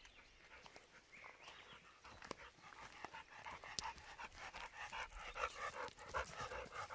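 Pit bull-type dog panting quickly and rhythmically, the panting growing louder from about three seconds in as the dog comes up close.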